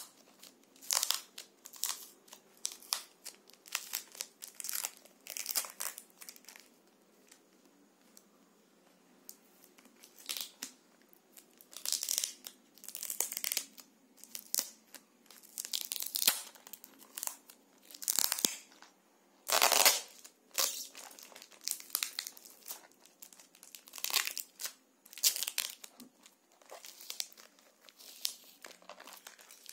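Yellow plastic courier wrapping being torn and crinkled by hand off a small cardboard box, in irregular bursts of rustling and tearing, with one longer, louder tear about two-thirds of the way through.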